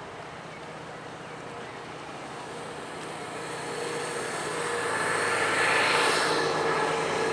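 A vehicle passing close by: a rushing noise with engine tones that builds over about five seconds, is loudest about six seconds in, then begins to fade.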